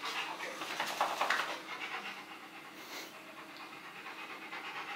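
Rottweiler panting with its tongue out, steady and rhythmic, louder in the first second or so and then softer.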